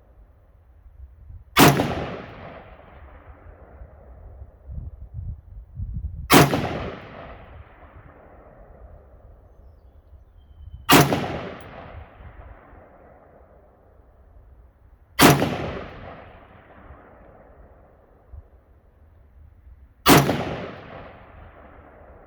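AR-15 rifle firing steel-case ammunition slowly: five single shots about four to five seconds apart, each followed by a long echo that fades away. A few dull low thumps come between the first and second shots.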